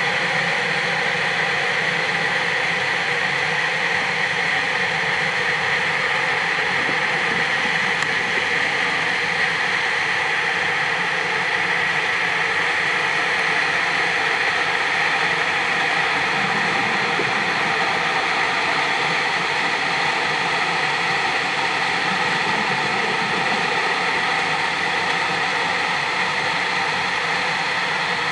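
Steady machinery hum with an even hiss, heard underwater, with several fixed tones that do not change.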